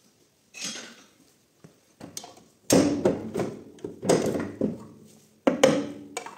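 Long screwdriver prying at the seam of an Audi multitronic CVT gearbox casing: a short scrape, then a series of sharp metal clanks and scrapes with a brief ring as the blade levers against the housing.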